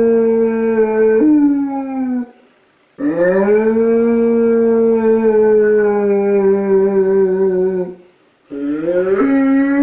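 Great Dane howling at being left home alone, in long drawn-out howls: one ends about two seconds in after a sudden upward break in pitch, a second lasts about five seconds, rising at the start and then sagging slowly, and a third begins near the end with a jump up in pitch.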